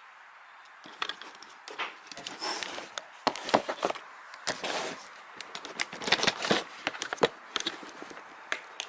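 Irregular clicking and clattering of small metal hardware being handled and rummaged through, such as T-nuts and drill bits, starting about a second in. A few sharper knocks stand out in the middle and later on.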